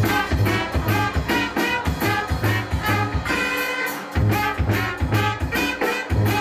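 A New Orleans-style brass band playing live: trumpets, trombones and tenor saxophone over a pulsing sousaphone bass line, with snare and bass drum keeping a steady beat. The bass line drops out briefly about four seconds in.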